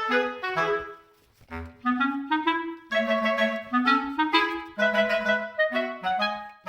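Background music: a bouncy clarinet-like melody of short notes over a plucked low accompaniment.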